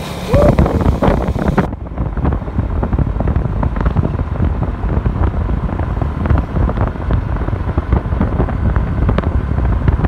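Wind buffeting the microphone of a moving motorcycle, with engine and road noise underneath. The higher hiss cuts out suddenly just under two seconds in.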